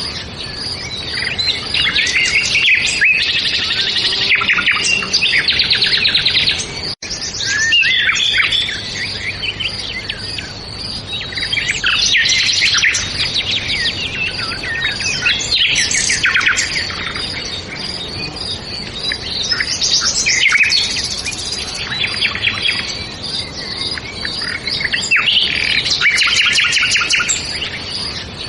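Several songbirds chirping and trilling together in a dense, continuous chorus of quick high notes and rapid trills, with a momentary break about seven seconds in.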